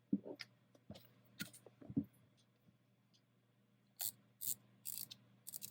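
Light clicks, taps and short rattles from coffee equipment being handled. There are a few soft knocks early on, then four brighter, rattly clicks in the last two seconds, over a faint steady hum.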